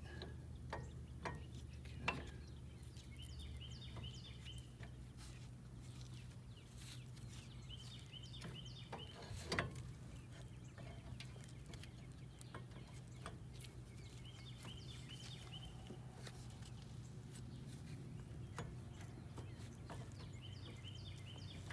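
Quiet background with a bird calling every several seconds and a steady low hum, broken by a few sharp metallic clicks from brake caliper parts being handled and fitted.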